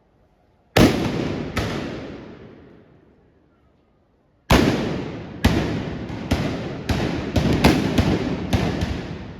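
Trabucs (Catalan blunderbusses) fired with blank black-powder charges in a galejada salvo. Two loud shots about a second apart come first, then after a pause a ragged volley of about a dozen shots, each dying away slowly.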